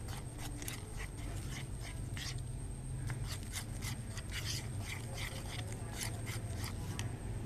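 Spoon stirring foamy soap slime mixture in a bowl: quick, irregular scrapes and squishes against the bowl, over a steady low hum.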